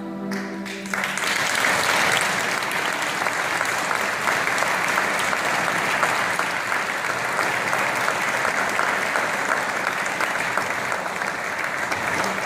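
The last held chord of the music fades out, and about a second in an audience breaks into steady applause that carries on.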